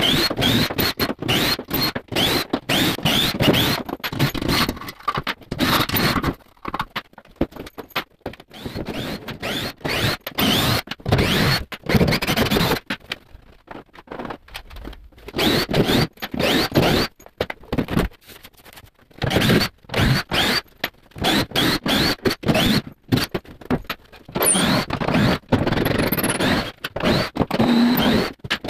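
Cordless drill driver backing screws out of a wooden shipping crate, its motor whirring in many short bursts that each rise in pitch, with scraping and knocks of wood in between. It goes quieter for a couple of seconds about halfway through.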